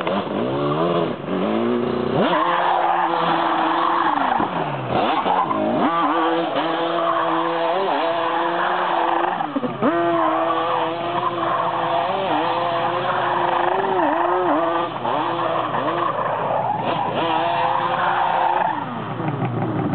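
Yamaha Banshee quad's two-stroke twin engine revved hard again and again, its pitch climbing and falling, with the tyres squealing as the quad spins on asphalt in a burnout. The engine eases off near the end.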